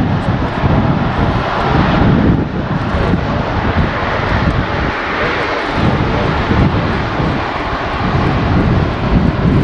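Jet engines of a four-engine Airbus A340 airliner running at taxi power as it rolls slowly past: a steady roar over an uneven low rumble.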